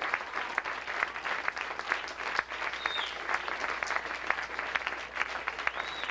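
Concert audience applauding steadily after a solo jazz piano improvisation, with a short high whistle about three seconds in and another near the end.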